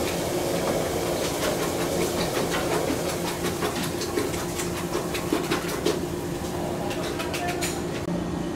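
Kitchen knife tapping against a wooden cutting board in quick, even strokes, several a second, as shiso leaves are sliced into strips; the strokes stop near the end. Under it runs a steady mechanical hum.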